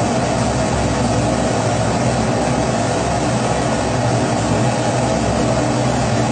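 Kerosene pressure stove (Primus-type burner) burning, a loud, even, unbroken rushing noise that holds steady throughout.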